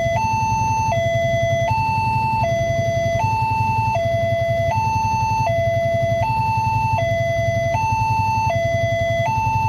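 Newly installed railway level-crossing alarm sounding from the loudspeaker on the crossing post: an electronic two-tone hi-lo signal that switches between a lower and a higher tone about every three quarters of a second, warning that a train is approaching. A low rumble runs underneath.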